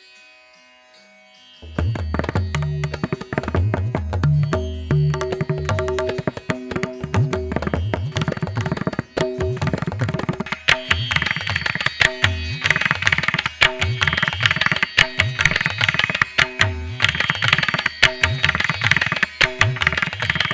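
Instrumental music: a quiet passage of sustained notes, then loud rapid drumming and deep bass come in suddenly about two seconds in and carry on.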